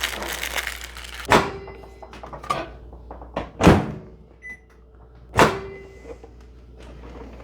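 Microwave oven in use: a rustle at the start, then a few sharp thuds of its door shutting and opening, with a short beep of the keypad about four and a half seconds in.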